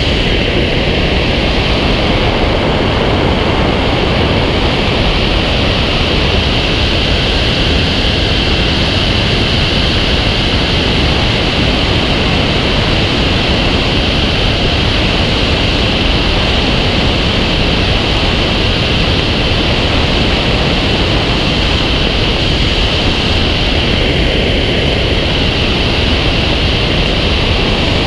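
Loud, steady rush of airflow over a camera mounted on the wing of an engineless Fox aerobatic glider in flight. It is wind noise on the microphone with a hissing edge and no engine sound.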